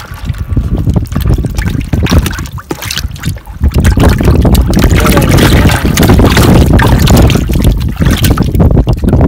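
Freshly caught herring thrashing and splashing in a bucket of water, with heavy wind rumbling on the microphone.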